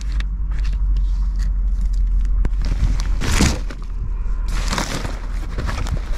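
Handling sounds: a screw cap put on a plastic water bottle and rustling of a fabric bag as things are packed into it, with two louder rustles about three and a half and five seconds in, over a steady low rumble.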